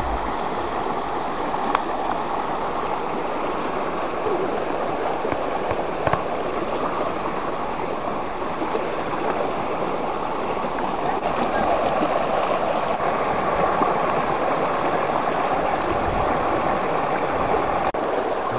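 Shallow stream running over stones and pebbles: a steady rushing, babbling water sound.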